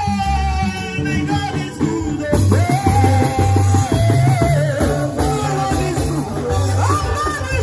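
Amplified live gospel band music: bass, drums and guitar, with a woman's held, bending sung notes over them.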